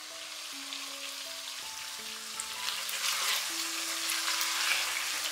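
Chicken pieces sizzling in oil in a pot, stirred with a silicone spatula in the second half; the sizzle grows louder.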